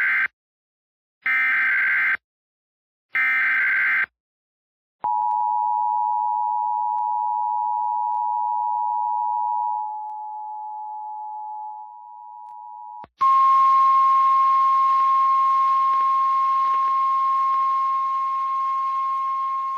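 Emergency Alert System alert: three short bursts of screechy SAME header data, then the two-tone EAS attention signal, which steps down in level about ten seconds in. About thirteen seconds in, a single steady NOAA Weather Radio warning tone comes in over radio static.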